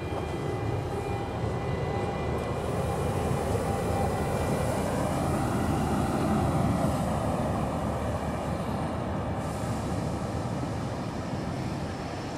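A train running past on the station tracks: a steady rolling rush that swells to its loudest about halfway through and then eases off, with faint steady whining tones in the first few seconds.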